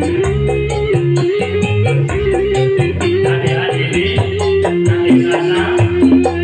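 Live band music: a keyboard carrying bass and melody over a steady high tick about four times a second, with hand drums, and a long bamboo flute (suling) joining the melody.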